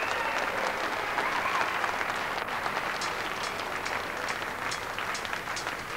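Audience applauding, the dense applause thinning to more scattered separate claps over the last few seconds.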